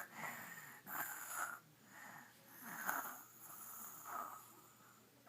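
A little girl fake-snoring while pretending to sleep: a series of breathy snore puffs, about one every second and a half, dropping away near the end.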